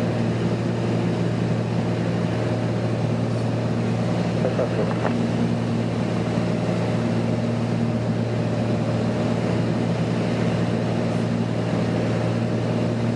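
Small single-engine propeller plane's piston engine and propeller droning steadily in cruise, heard from inside the cockpit, with an even low hum and steady tones above it.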